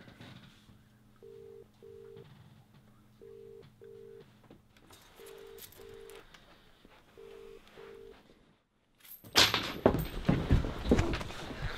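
Telephone ringback tone: four double rings, each a pair of short steady tones, repeating about every two seconds, over a faint low hum. About nine seconds in, a sudden loud, noisy sound cuts in and becomes the loudest thing.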